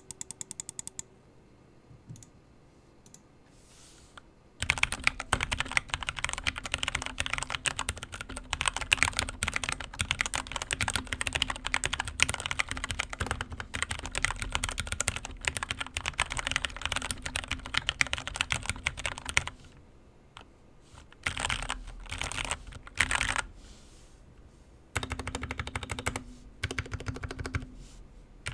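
Keychron K6 mechanical keyboard with lubed Gateron Brown switches being typed on fast in a typing sound test, a dense run of key clacks starting about four and a half seconds in, then shorter bursts after a brief pause. The switches sound unremarkable, which the owner judges left a lot to be desired.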